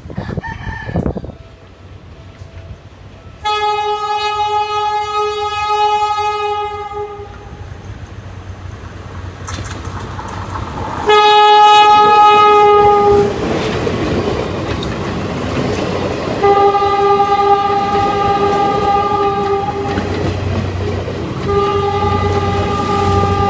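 Diesel locomotive horn sounding four long single-note blasts as a passenger train passes, the second one the loudest, over the rumble and wheel clatter of the locomotive and coaches on the rails.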